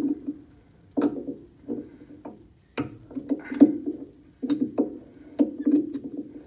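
Irregular clicks, knocks and short clatters of small carburettor parts and hand tools being handled and set down on a workbench.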